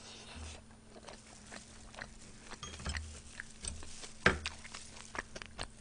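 Faint eating sounds: soft chewing and mouth noises with small scattered clicks as metal tongs are worked among the dishes, and one sharper click about four seconds in.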